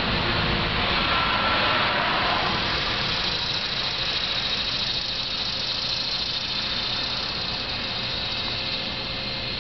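Steady mechanical running noise, like a motor or engine, a little louder for the first couple of seconds and then easing slightly, with a faint steady high whine above it.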